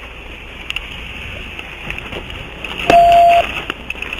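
Steady low background noise from the vehicle and its surroundings, with scattered faint clicks, and a single loud electronic beep lasting about half a second near the end.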